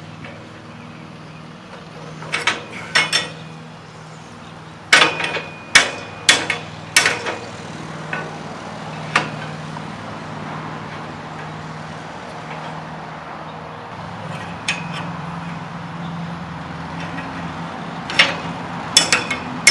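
Metal-on-metal strikes as a steel spud wrench is used as a hammer on the rusted steel parts of an Eli Bridge #6 Baby Wheel Ferris wheel. The blows come in irregular clusters, some ringing briefly, over a steady low hum.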